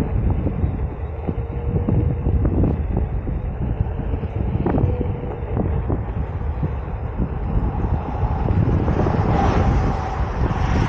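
Wind rumbling on a helmet-mounted camera's microphone during a Onewheel GT ride, with a faint steady whine and scattered ticks and knocks. A hiss swells over the last few seconds.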